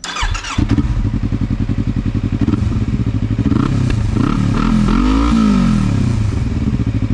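Yamaha R3's 321 cc parallel-twin engine, fitted with an Austin Racing aftermarket exhaust, starts up and settles into a deep, even idle within the first second. It is blipped once in the middle, the revs rising and falling back to idle.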